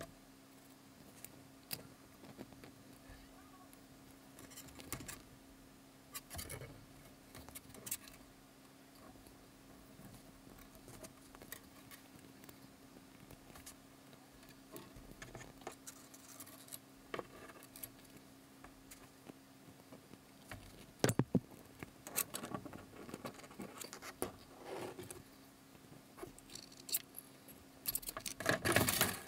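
Thin wire being handled and bent with long-nose pliers: faint, scattered metallic clicks, ticks and scrapes, with a louder flurry about 21 seconds in and a longer, denser one near the end.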